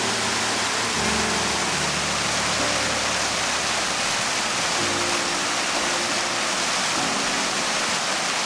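Fountain water splashing steadily onto brick paving, an even rushing hiss.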